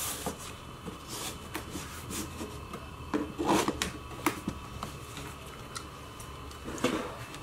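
A ribbon being slid off a rigid cardboard gift box, with scattered rubbing and light knocks of hands on the cardboard as the box is handled; the busiest stretch of rustling comes about halfway through.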